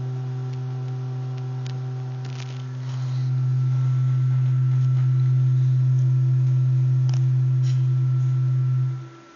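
Tuning fork's vibration picked up by a relay coil and played through hi-fi speakers: a steady low pure tone with fainter higher tones above it. It grows louder about three seconds in and cuts off suddenly near the end as the tines are stopped by hand.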